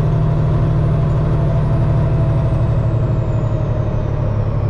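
Semi truck's diesel engine running steadily, heard inside the cab, with a faint high whine that slowly falls in pitch as the driver eases off rather than pushing for the light.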